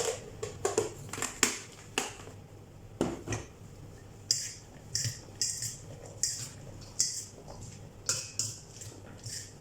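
A fork clinking and scraping in a bowl of leafy salad, with crisp rustles of lettuce and leaves being moved repeating about every half second to a second.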